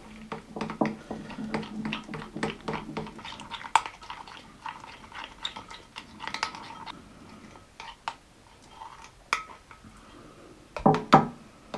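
Metal spoon stirring and scraping a thick sourdough starter paste of flour and water in a glass bowl, with irregular clinks and ticks of the spoon against the glass.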